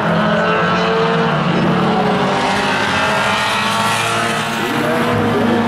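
Several budget tuner-class race cars running hard around a short oval track, their engines overlapping at high revs. The pitches rise and fall as the cars pass and change speed.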